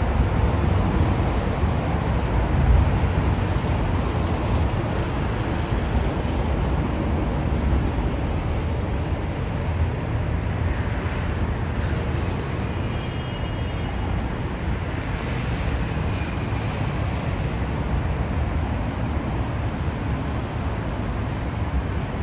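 Steady street traffic noise: a continuous rumble of cars passing on a busy city road.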